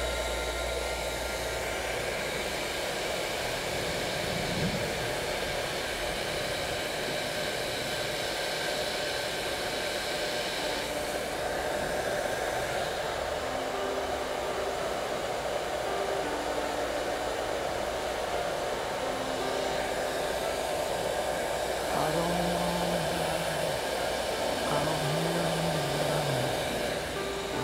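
Electric heat gun blowing steadily on a wooden aileron, softening the cured T-88 epoxy joints so the parts can be pried apart.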